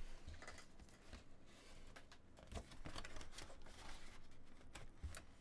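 Faint, irregular crackling and rustling of thin cardboard as a trading-card box is torn open by hand along its perforated tear strip.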